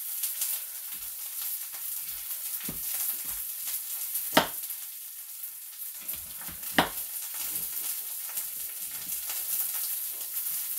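Vegetables sizzling in a frying pan with a steady hiss, while a knife cuts a red bell pepper on a cutting board, giving a few sharp knocks, the loudest two near the middle a couple of seconds apart.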